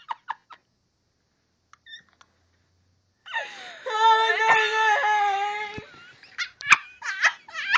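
A person's voice lets out one long, loud wail held on a single pitch for about two and a half seconds, made as a deliberate silly loud noise. A run of short, quick vocal bursts follows near the end.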